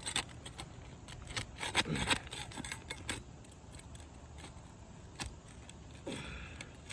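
A metal paint scraper working under asphalt roof shingles to break their sealant strips: irregular light scrapes and sharp clicks of the blade against the shingles, with a longer scrape about two seconds in.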